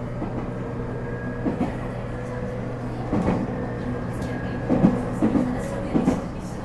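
811 series AC electric multiple unit running, with the steady hum of its thyristor phase-control traction equipment and irregular clunks of the wheels over rail joints, the loudest about three, five and six seconds in.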